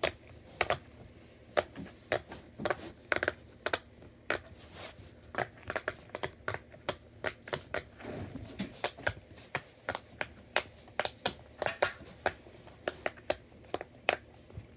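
Bubbles of a silicone pop-it fidget toy being pressed in with the fingers, one after another: a run of short, sharp pops at an uneven pace of about three a second.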